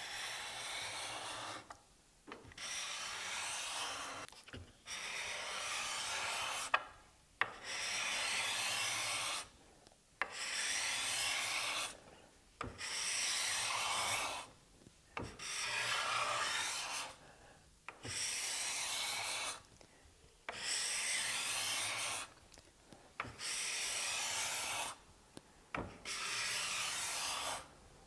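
Hand-held steel card scraper shaving a Brazilian rosewood board in about eleven strokes, each a couple of seconds long with a short pause between. The freshly burnished burr is cutting, taking off the mill marks.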